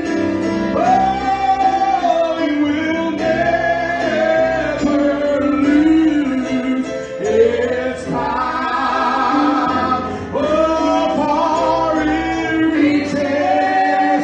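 Live gospel singing, with voices carrying the melody over keyboard and bass accompaniment.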